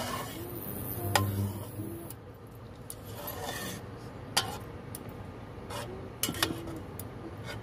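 Metal spoon stirring thick pav bhaji in a metal pot, scraping through the vegetable mash with several sharp clinks against the pot's side.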